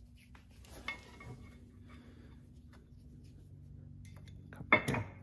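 Metal clinks of a screwdriver and steel-backed brake pad against a Subaru four-piston brake caliper: a light tap about a second in, then a couple of sharp, loud clinks near the end.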